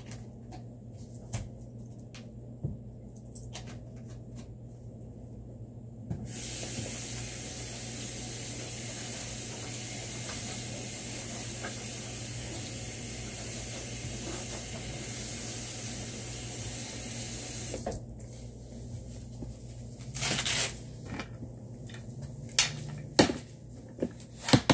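Water running from a tap for about twelve seconds, starting and stopping abruptly, followed by a few short knocks and clatters.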